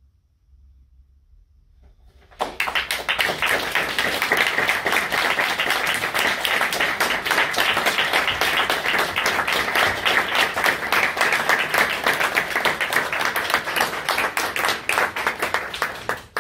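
Audience applauding: after about two seconds of near quiet, dense clapping starts abruptly and holds steady, then stops suddenly near the end.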